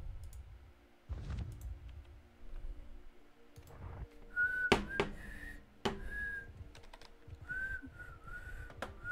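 A person whistling a few short, wavering notes from about halfway through, with a few sharp clicks, the loudest just as the whistling begins.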